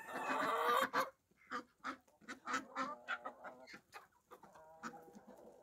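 Chickens clucking in a run of short, quiet calls, after a louder, noisy burst in the first second.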